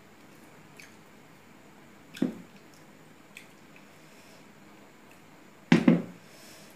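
Handling of tableware during a meal: small clicks and squishes of rice being worked by hand and spoon on a steel plate, a sharp knock about two seconds in, and a louder double knock near the end as the serving bowl is set back down on the table.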